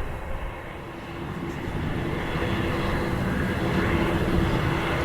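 Airliner engines running, a steady rumble with a thin constant hum that grows louder from about a second in.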